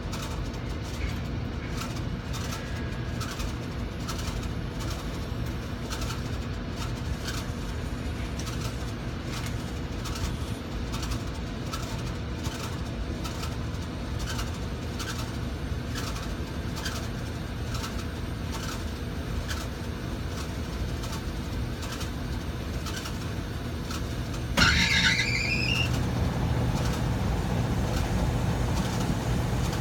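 A steady hum with faint regular ticking. About 25 s in, a Rheem air-conditioner blower starts up with a sudden loud squeal that rises in pitch for about a second and a half, then keeps running with a louder steady hum.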